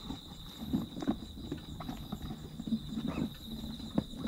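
Crickets chirping steadily, with irregular soft knocks and rustles close to the microphone from cats moving around it; the sharpest knock comes about four seconds in.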